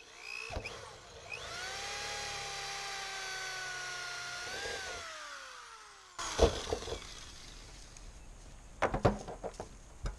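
Corded power drill with a hole saw spinning up and cutting through the wall of a plastic rain barrel, a steady whine for about three seconds, then winding down as the trigger is released. A sharp knock follows about six seconds in, and a few clacks near the end.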